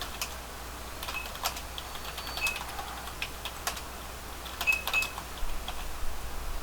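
Computer keyboard typing: irregular, scattered key clicks.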